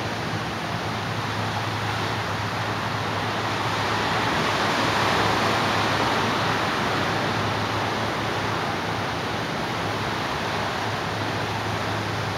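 Ocean surf breaking and washing up a sandy beach: a steady rush of water that swells about four to six seconds in as a wave breaks, then eases.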